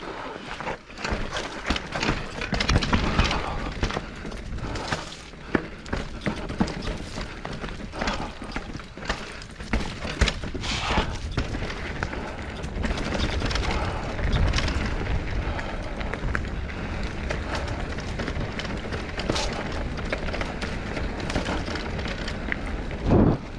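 Wind buffeting a GoPro's microphone, with irregular knocks and rattles throughout and one loud low thump near the end.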